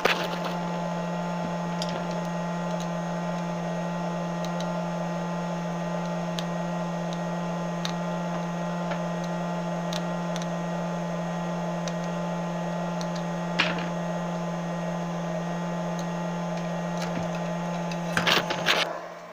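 Steady electrical buzzing hum with a low tone and overtones. A few faint clicks come through it, and a cluster of handling knocks sounds near the end.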